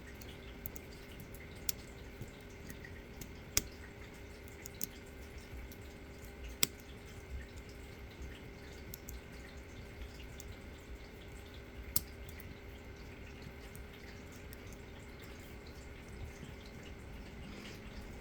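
Scattered small sharp clicks, irregularly spaced, from a pick working inside an ASSA D12 disc-detainer lock. A steady low hum lies underneath.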